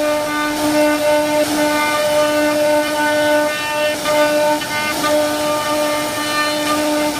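CNC router spindle whining at one steady pitch as its bit carves a wooden panel, the whine dipping and coming back every second or so over a rough hiss of cutting.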